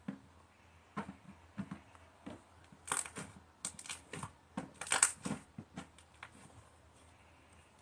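Fluffy slime being squeezed and stretched by hand, making irregular crackles and pops. They are densest and loudest about three and five seconds in, then die away.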